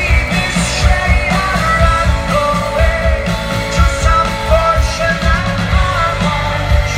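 Rock-style song with a singing voice over a steady drum beat.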